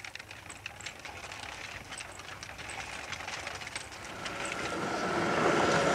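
Wooden wheels with iron tyres rolling and rattling over a tarmac road on a replica treadle-driven velocipede, with many small clicks. It grows louder from about four seconds in, where a steady tone joins it.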